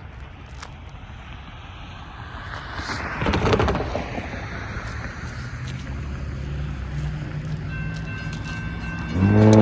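A car passes close by about three seconds in, then a train's rumble builds as it approaches. Steady high tones join near the end, and the locomotive's air horn sounds a loud chord just before the end.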